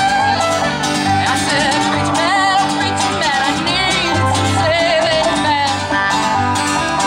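Live bluegrass string band playing: an upright bass plucks a steady beat under acoustic guitar and banjo, with a wavering melody line above.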